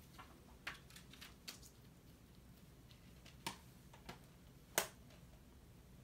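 Scattered light clicks and taps from handling a Blu-ray steelbook case and disc. The sharpest click comes almost five seconds in.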